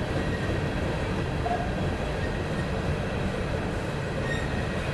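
Empty coal hopper cars rolling past on the rails: a steady rumble of freight car wheels over the track.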